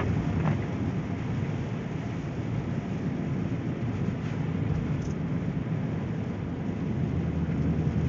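Steady low rumble of a four-wheel-drive vehicle's engine and tyres rolling on a snow-covered road, heard from inside the cabin.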